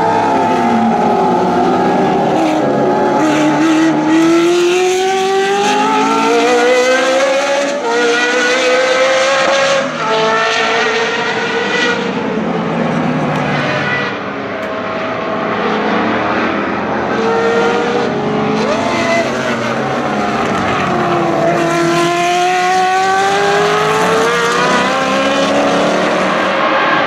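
Lola T280's Cosworth DFV V8 racing engine at high revs on track. Its pitch climbs in repeated steps through upshifts and falls away at times as it lifts and downshifts.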